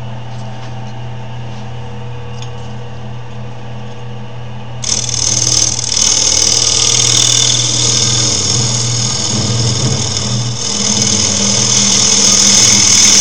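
Wood lathe motor running with a steady hum. About five seconds in, a turning tool is put to the spinning wood and a loud, hissing scrape of the cut starts and carries on, growing louder near the end.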